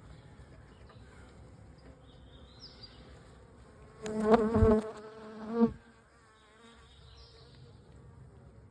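Honeybees buzzing at an open nuc hive. About four seconds in, a bee flies close past the microphone with a loud buzz lasting about a second, and a shorter close buzz follows just after.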